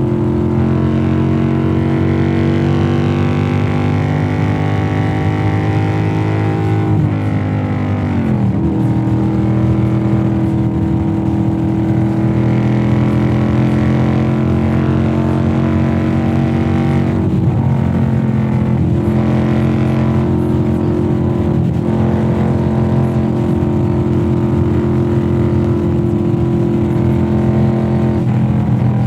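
Motorcycle engine running hard under acceleration, its note climbing slowly. About seven seconds in the pitch drops sharply and climbs back, like a gear change, and it dips again near seventeen seconds.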